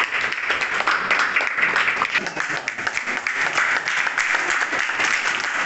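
A small group of people clapping steadily: sustained applause made of many quick hand claps.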